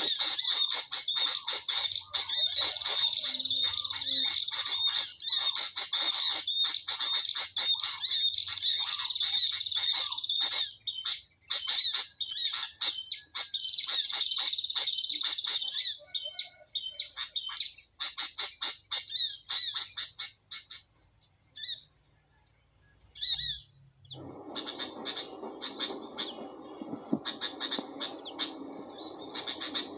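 Small birds chirping and twittering rapidly and almost without pause, high-pitched. The chirping thins out for a few seconds past the middle, then a lower steady noise joins in under it near the end.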